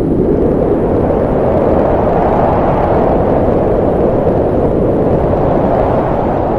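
Loud, steady rumbling noise with no pitch, swelling a little in the middle and easing slightly near the end.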